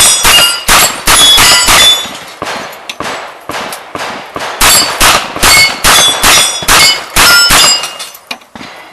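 Open-class competition revolver firing a rapid string of shots at steel targets, most shots followed by the bright ring of a steel plate being hit.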